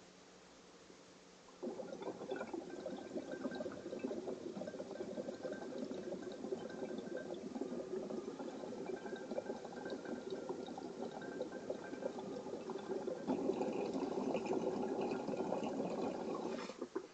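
Water bubbling hard through a glass bong's three inline percolators and showerhead percolator as smoke is drawn through it. The dense gurgle starts about a second and a half in, gets louder about thirteen seconds in as the pull gets harder, and cuts off suddenly near the end.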